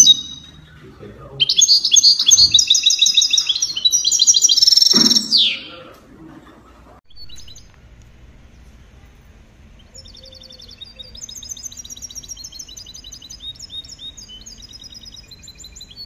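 A songbird singing fast runs of high trilled notes, loud for the first few seconds, then, after a pause, fainter song from about ten seconds in. The later song comes from a small caged songbird.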